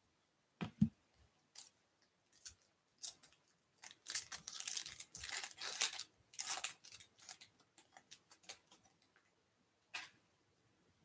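A trading-card pack wrapper torn open and crinkled by hand, a dense crackle in the middle that thins to scattered crinkles. A single knock comes near the start.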